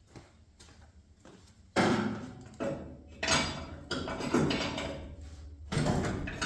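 Several sharp metallic bangs and clanks, starting about two seconds in, as the broken leaf spring of a truck's rear suspension is worked loose and knocked out of its mounts.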